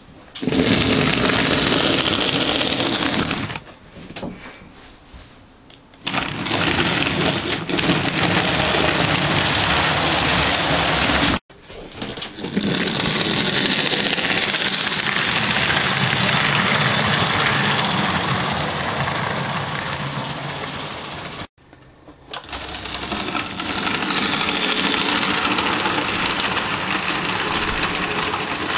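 Model J50 tank locomotive running along the track: a steady mechanical whirr and rattle from its small electric motor and wheels. It breaks off sharply a few times and starts again.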